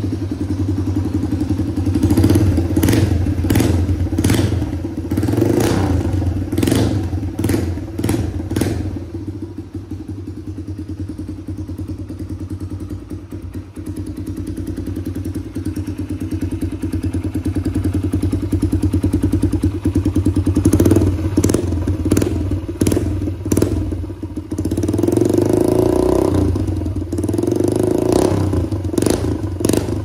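Suzuki DR-Z125's single-cylinder four-stroke engine running with no muffler, just the bare header pipe. It idles steadily, with two spells of throttle blips that bring a string of sharp bangs from the open pipe, one in the first few seconds and one over the last third.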